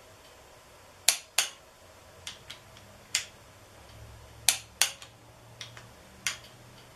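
Socket ratchet on the crankshaft bolt of an LS V8 clicking sharply as its handle is swung back and forth to turn the engine over by hand, the clicks coming mostly in quick pairs about a dozen times.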